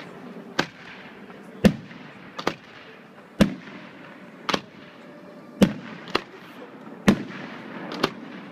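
Aerial fireworks shells bursting: about ten sharp bangs, roughly one a second and one of them a quick double, each with a short echoing tail.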